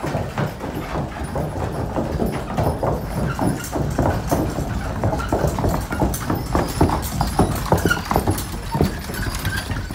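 A quick, uneven run of clattering knocks, several a second, with a low rumble underneath, loudest through the middle.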